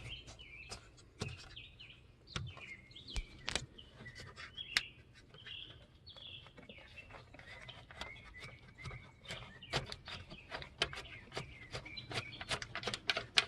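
Scattered small clicks and taps of hands working a Jeep CJ-7 headlight switch loose from its dash bezel, with birds chirping faintly in the background.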